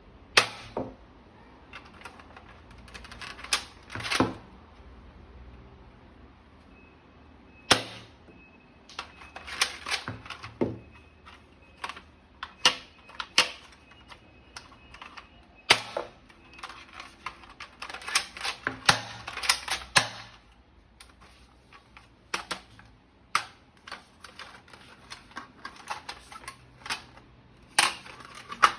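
Irregular sharp clicks and snaps, some single and some in quick clusters, from a toy gun being handled and its parts worked or fitted together.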